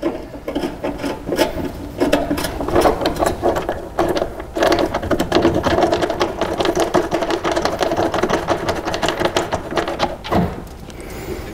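A small handheld power tool running in a few runs, its motor whirring with a rapid mechanical clatter. The longest run comes about halfway through and stops about a second before the end.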